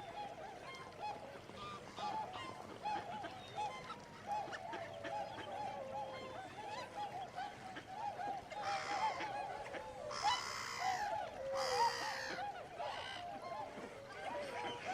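A flock of birds calling continuously, many short overlapping calls, with a few louder, harsher calls between about nine and thirteen seconds in.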